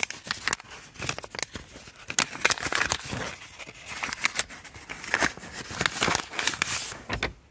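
Paper and plastic rustling and crinkling as a kraft-paper voucher envelope and a plastic carrier bag are handled and the envelope is opened, in a dense run of irregular crackles that stops abruptly near the end.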